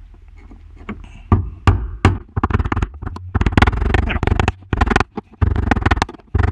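Screwdriver knocking against the fuel pump lock ring of a 2001–2005 Honda Civic to turn it loose. Rapid, irregular knocks start about a second in.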